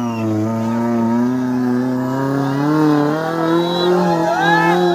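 Off-road 4x4's engine held at high revs, its pitch wavering only slightly.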